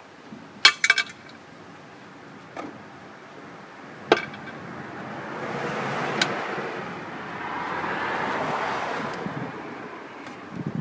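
Metal parts clinking and tapping under the hood, a quick cluster about a second in and single taps later. From about five seconds in, a rushing noise swells and fades over several seconds.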